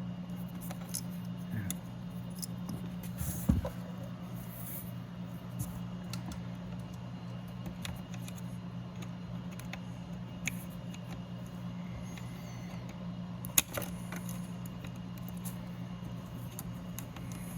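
Scattered small clicks and rattles of a car door lock actuator, its cable and clip being handled and fitted inside a door, with a knock about three and a half seconds in and a sharp click past the middle. A steady low hum runs underneath.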